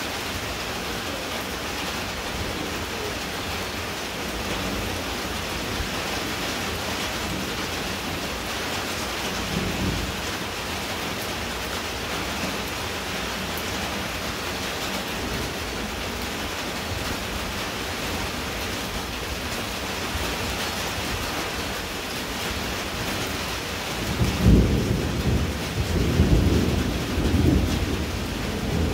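Steady rain falling on puddled ground. About four seconds before the end a deep, irregular rumble of thunder rises over the rain.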